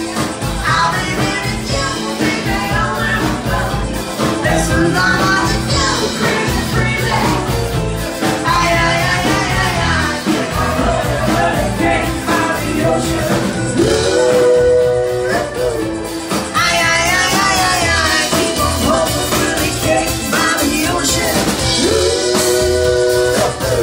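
Live rock-and-roll trio playing: drum kit, acoustic guitar and a singing vocalist, loud and continuous.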